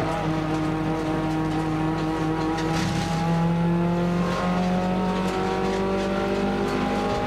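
Nissan March race car's engine heard from inside the cabin, accelerating hard with its pitch climbing steadily. It drops once at an upshift about four and a half seconds in, then climbs again.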